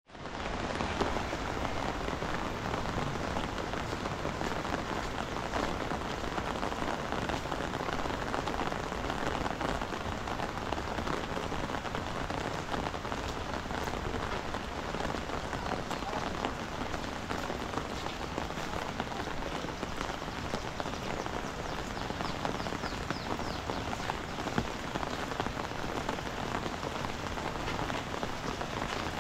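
Heavy rain pouring steadily, a dense even hiss with many fine drop ticks, fading in over the first second.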